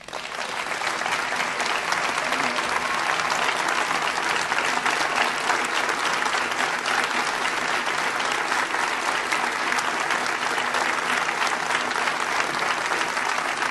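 Large crowd applauding: dense, steady clapping that builds up over the first second and keeps going.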